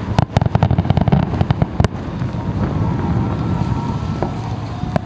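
Aerial fireworks going off: a rapid string of sharp bangs and crackles in the first two seconds, then a low rumbling wash, with a couple more bangs near the end.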